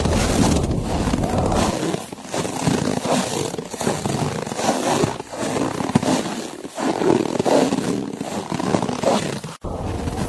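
Blizzard wind blowing hard in uneven gusts, a loud rushing roar that swells and eases every second or two. It cuts out for an instant near the end.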